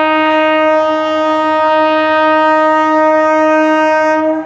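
Locomotive horn sounding one long steady blast at a single pitch, cutting off near the end.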